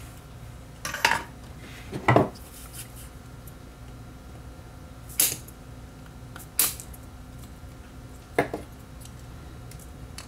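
Electrician's scissors snipping the excess wire leads of soldered components on a circuit board: about five short, sharp metallic snips spread out over several seconds, the loudest about two seconds in.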